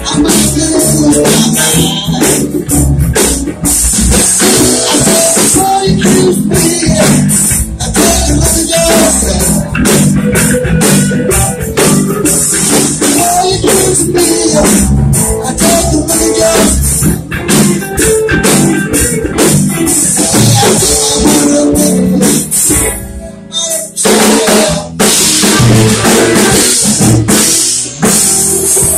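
Live electric blues band playing loud: electric guitars, bass and a drum kit with congas. It thins out briefly a little past the middle before coming back in full.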